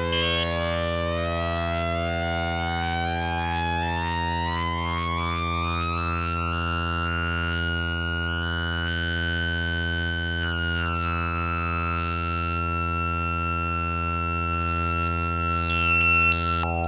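Behringer Odyssey analogue synthesizer (an ARP Odyssey clone) holding a steady low note rich in overtones. Above it a higher tone climbs in pitch over about ten seconds, then holds, with a few quick falling glides near the end.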